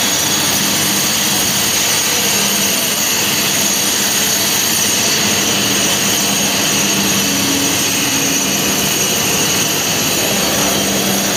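Loud, steady machinery drone with a low hum and a faint high whine, unbroken throughout.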